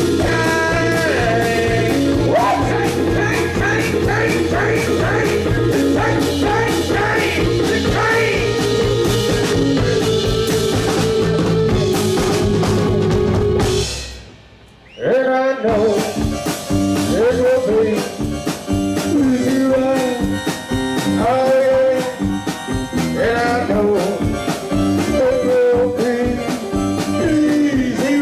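Rock band playing live with a steady beat; the music stops for about a second and a half about halfway through, then starts again.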